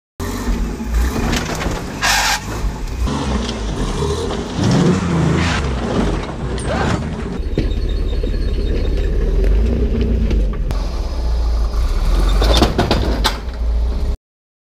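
Off-road rig's engine running steadily, with a few short knocks and clatters along the way.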